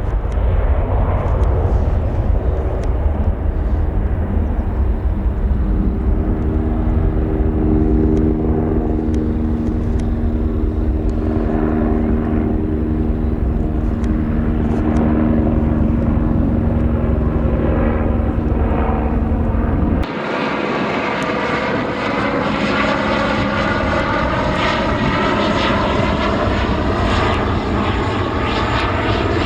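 Aircraft engines running: a deep rumble with steady held tones, then an abrupt cut about two-thirds of the way through to a different aircraft sound made of many evenly spaced tones that slowly drift down in pitch as it passes.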